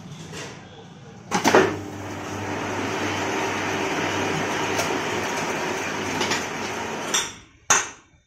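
Two loud knocks about a second in, then a lathe runs steadily for about five seconds, spinning a tractor front-wheel hub in its four-jaw chuck to check whether it runs true, and spins down. A single sharp hammer blow on the hub follows near the end as the truing goes on.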